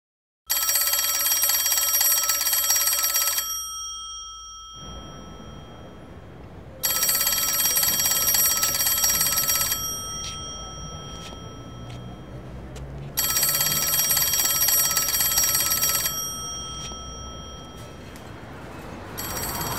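Payphone ringing: three rings, each about three seconds long, with gaps of about three and a half seconds between them. A low hum sits under the gaps, and a noisier street ambience rises near the end.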